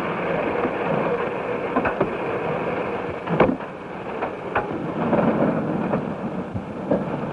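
Steam locomotive running, a steady rushing hiss with scattered metallic clanks; the sharpest clank comes about three and a half seconds in.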